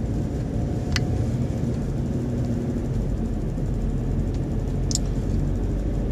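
Steady low rumble of a car's engine and tyres heard from inside the moving car's cabin, with two brief ticks, about a second in and about five seconds in.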